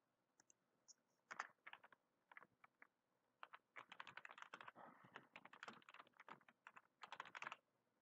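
Quiet typing on a computer keyboard: irregular runs of keystrokes, starting about a second in and coming thickest in the second half.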